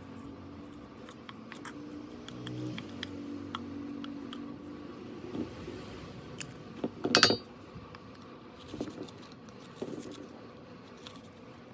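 Coffee machine being handled: a low steady hum for the first few seconds, with scattered clicks and a louder clatter of hard parts about seven seconds in.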